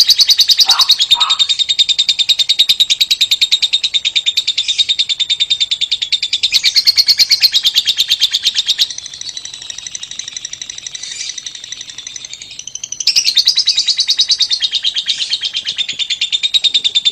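Lovebird singing a long, high-pitched rattling trill (ngekek) of very fast, even pulses, held without a break; it drops to a softer chatter for about four seconds in the middle, then comes back at full strength.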